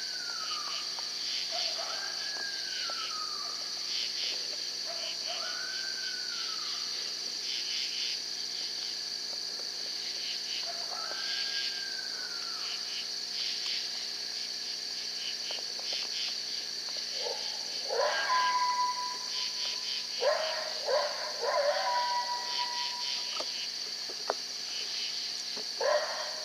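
Coyote vocalizations: short rising-and-falling howls repeated every couple of seconds, then from about two-thirds in, louder, longer howls broken by yips. Insects chirr steadily behind them.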